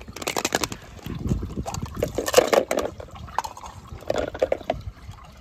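Water splashing and sloshing as a hand lifts a clear plastic capsule out of a small tub of water and handles a die-cast toy car in a bowl of water, with many short clicks and knocks of plastic and metal.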